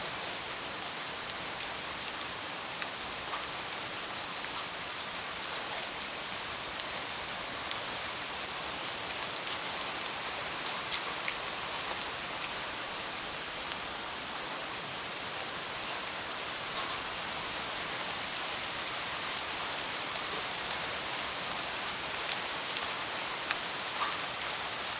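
Steady rain falling, with many separate drops ticking sharply on nearby surfaces through an even hiss.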